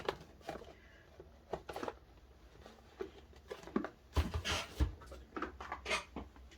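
Plastic photocard sleeves being handled: scattered light crinkles and clicks, growing into a denser rustle with soft knocks on the desk about four seconds in.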